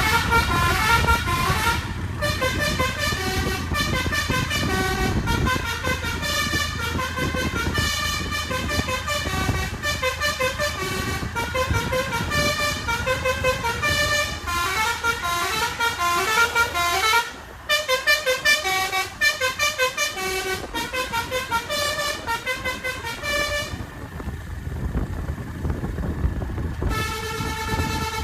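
Basuri V3 telolet multi-tone bus horn playing quick melodic note sequences over and over above the bus engine's low drone. The tune breaks off briefly past the middle and stops for a few seconds near the end before starting again.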